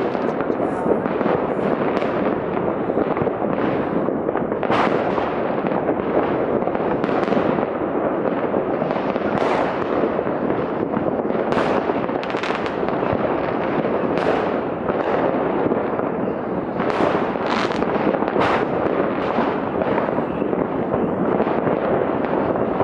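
New Year's Eve fireworks going off all across a city, heard from afar: a continuous dense rumble of many overlapping bangs and crackles. Sharper single pops and bangs stand out about once a second.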